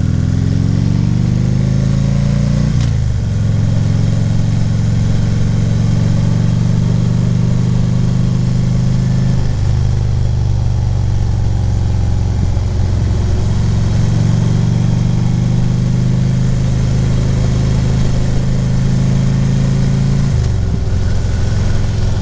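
A Harley-Davidson Ultra Limited's V-twin engine running under way. It revs up over the first three seconds, drops sharply with a gear change, then holds steady at cruising revs with a few brief dips in throttle, over a steady rush of wind and road noise.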